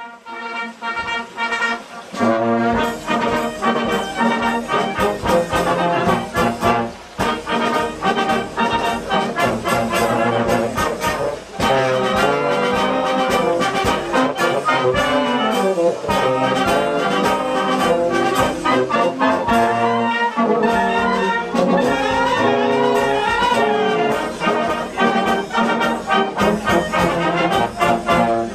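A brass band with saxophones and tuba playing a tune together, percussion keeping a steady beat. The music fades in over the first couple of seconds.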